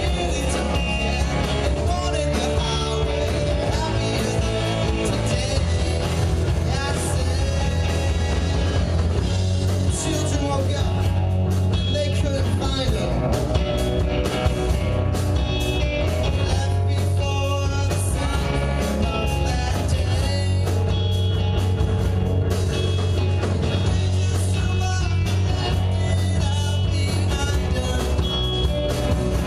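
Live rock band playing, with electric guitar, bass, drums and singing.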